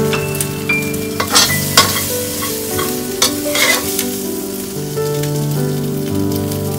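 Stainless steel spatula scraping and knocking against a ceramic serving bowl as stir-fried food is pushed into it, a few sharp clicks between about one and four seconds in, over a steady hiss and background music.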